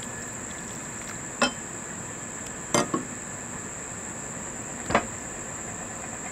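A spatula knocks sharply against a mixing bowl a few times, once as a quick double knock, while stirring a stiff cornstarch-and-water mix. Crickets chirr steadily and high-pitched throughout.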